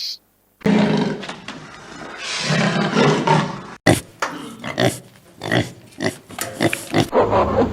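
An animal calling: rough, noisy calls for about three seconds, then a run of short, sharp sounds, with an abrupt change to a different sound near the end.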